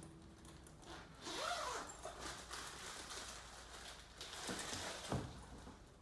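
Rustling and scraping as a cricket bat is handled and taken from its packaging, with a short rising-and-falling squeak about a second and a half in and two dull knocks near the end.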